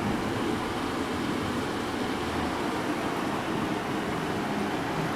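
Heavy thunderstorm rain pouring steadily, an unbroken rushing noise, over the running fan of a room air conditioner.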